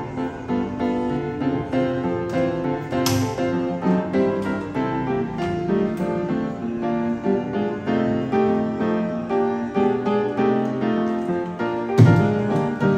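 Background music led by a piano, with a steady note-by-note rhythm. There is a brief hiss-like swish about three seconds in and a thump near the end, the loudest moment.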